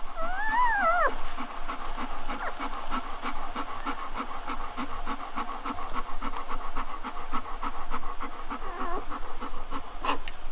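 A newborn golden retriever puppy gives one short whine that rises and falls, then comes a fast, steady run of panting at about five breaths a second, with a small squeak near the end.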